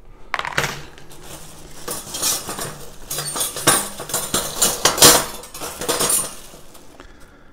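Chrome-plated metal wire dish-rack parts clinking and rattling against each other as they are handled inside a crinkling plastic bag, with one louder clatter about five seconds in.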